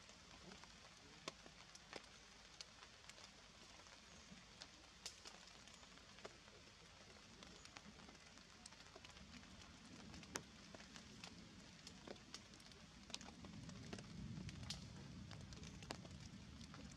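Near silence in wet forest, broken by faint scattered drips of rainwater ticking onto leaves, roughly one a second at uneven intervals; a soft low rumble swells about two-thirds of the way in.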